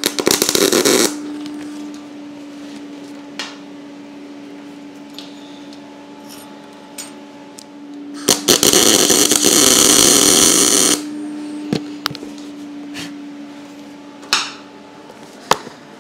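MIG welder tacking a snapped steel lug back onto a fuel-tank bracket: a short burst of welding crackle at the start, then a longer one of about two and a half seconds from about eight seconds in. A steady hum runs underneath, with a few small clicks between the welds.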